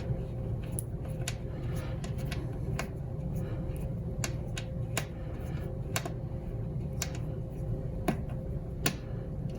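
Scattered light clicks and taps, about a dozen spread irregularly, from hand work on the unit's wire harness and connectors being fitted and fastened with a small Allen wrench. A steady low hum lies underneath.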